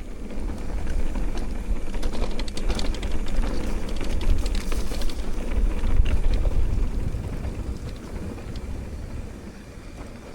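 Mountain bike rolling down a rough dirt and rock trail: a low wind rumble on the mic with tyre noise and a dense run of rattling clicks from about two to five seconds in, loudest around six seconds in, then easing off near the end.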